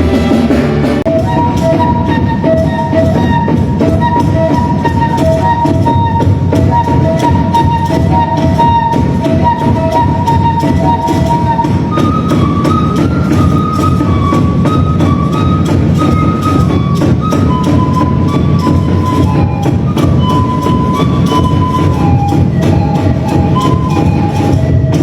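Music: a melody line over dense, fast percussion and a strong bass, with the melody moving higher about halfway through.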